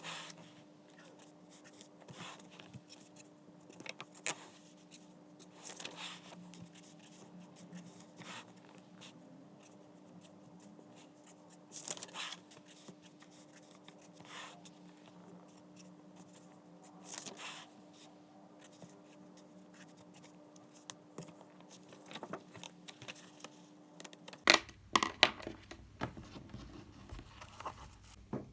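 Pen scratching on paper in short strokes, a second or two apart, over a faint steady room hum. Near the end a few sharper, louder knocks come in.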